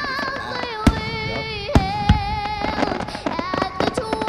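Fireworks going off in a string of sharp bangs, the loudest about a second in and twice near the middle, over music with a female singer holding long wavering notes.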